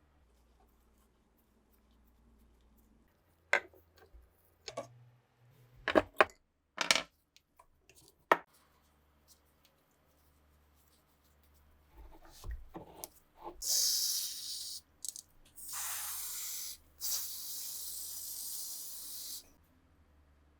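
A handful of sharp clicks and knocks of metal parts being handled, then three bursts of spraying hiss, the last and longest about two and a half seconds, like a spray being applied to rusty rifle parts.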